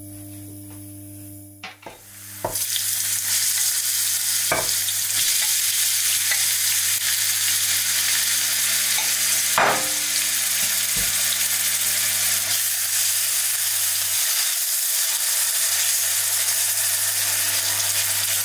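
Sliced garlic and finely chopped onion sizzling in hot oil in a frying pan as they are stirred with a silicone spatula. The sizzle starts about two and a half seconds in, after a low hum, and then holds steady, with a couple of light knocks.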